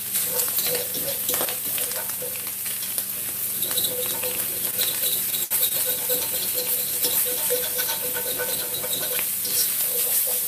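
Ground sausage sizzling in a little oil in a nonstick skillet, with repeated scraping and tapping of a utensil against the pan as the meat is stirred and broken up.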